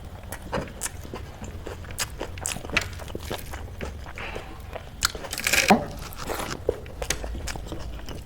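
A person eating: chewing and biting food with irregular crunches and wet mouth clicks, and a louder crunching bite about five and a half seconds in.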